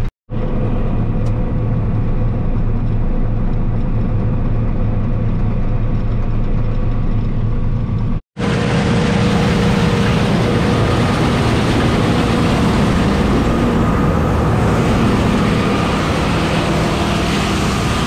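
John Deere combine running steadily while it harvests kidney beans, its engine and threshing drone heard from inside the cab. After a brief break about eight seconds in, the drone comes back louder and hissier.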